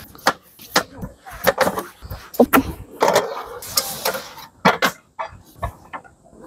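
Irregular knocks, taps and clatter of objects being handled, with a few brief low murmurs between them.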